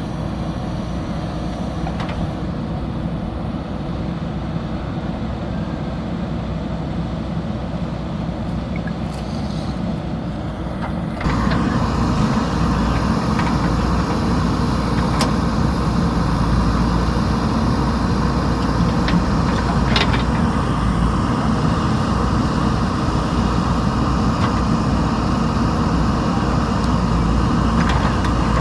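JCB backhoe loader's diesel engine running under work, turning abruptly louder about eleven seconds in, with a few sharp knocks near the middle.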